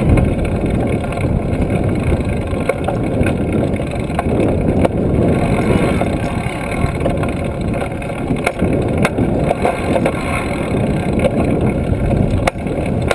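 Trail-a-bike being ridden: steady wind and rolling noise rumbling on a handlebar-mounted GoPro, with a few light clicks or rattles from the bike.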